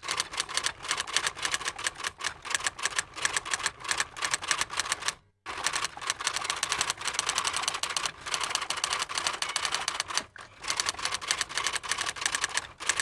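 Typewriter keys clacking in quick succession, a steady run of typing with a short break about five seconds in and another about ten seconds in.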